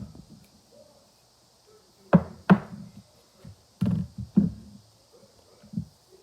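A series of short, hard knocks: two sharp ones about two seconds in, a few more around four seconds, and a fainter one near the end.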